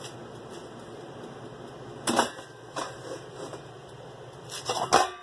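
Hard knocks and clatters of an air fryer and its basket being handled: a couple of single knocks about two and three seconds in, then a louder quick cluster near the end. Under them runs a steady low hum.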